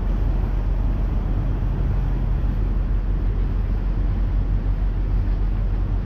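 River cruise boat's engine running steadily underway, a low even hum heard on board.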